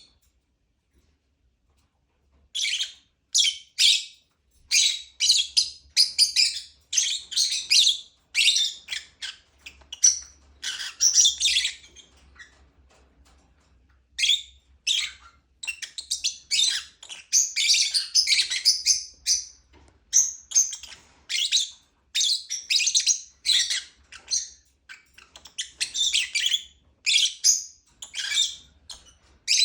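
Lovebird chirping in rapid runs of short, high-pitched chirps, starting after about two seconds of silence, with a brief lull a little before the middle.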